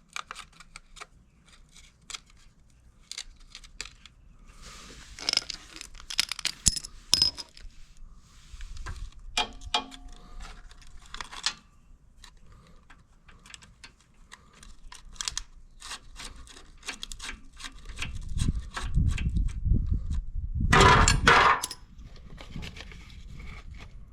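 Hand tools and small metal parts clinking, clicking and scraping in irregular handling. A louder low rumbling scrape with a clatter comes about three-quarters of the way in.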